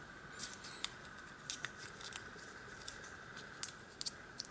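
Scattered light metallic clicks and scrapes of a VIRO Panzer padlock being taken apart by hand, its plug being worked out with a shim and follower.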